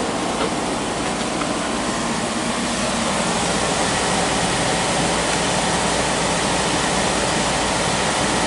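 1976 Fedders 11,000 BTU window air conditioner running steadily, with the compressor's hum under the even rush of its blower and fan.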